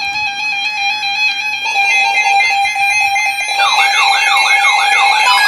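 Several NOAA weather radios sounding their alert alarms together for a severe thunderstorm warning: a loud steady alarm tone, a second tone joining about two seconds in, and a warbling siren-like alarm joining about three and a half seconds in.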